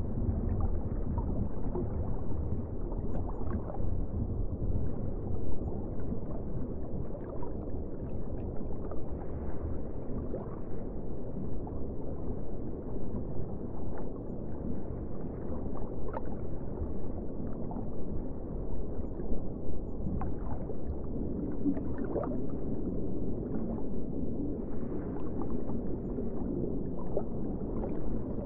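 Underwater ambience: a steady low rush of water with faint scattered clicks and gurgles.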